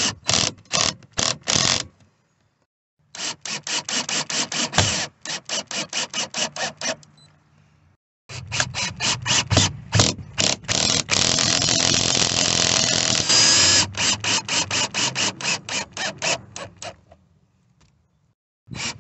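Cordless drill driving speaker mounting screws in three runs. It makes rapid, even clicking at about five a second, typical of the clutch slipping once a screw seats, with a few seconds of steady running in the middle of the longest run.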